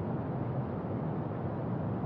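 Brown noise: a steady, deep rushing hiss with most of its weight in the low end and little treble.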